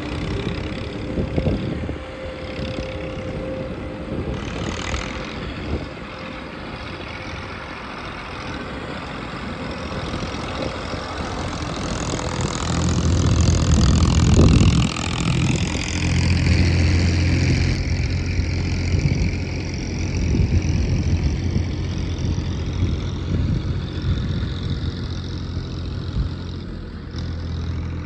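Diesel engines of earthmoving machinery running. About twelve seconds in, one engine comes in much louder with a steady low hum that holds to the end.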